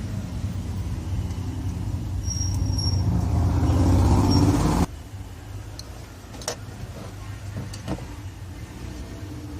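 A loud, low, pitched hum or rumble that swells and then cuts off abruptly about five seconds in. A few light clicks follow.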